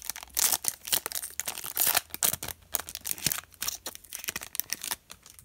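Foil trading-card pack wrapper being torn open and crinkled, in quick crackly bursts that stop about five seconds in.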